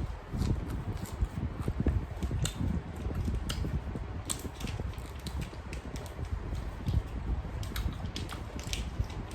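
Irregular small clicks and knocks over a steady low rumble.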